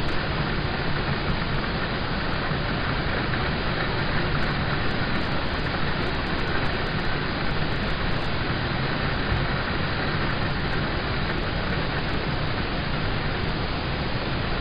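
Rain falling on a car's roof and windows, heard from inside the car as a steady, even hiss of dense drops.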